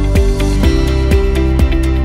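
Background music with a steady beat, about two strikes a second, under held melodic notes.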